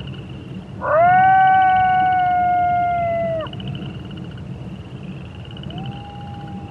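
A coyote howls: one long howl that rises quickly, holds steady for about two and a half seconds and drops off at the end. A second, fainter howl starts near the end. A chorus of frogs and toads trills steadily underneath.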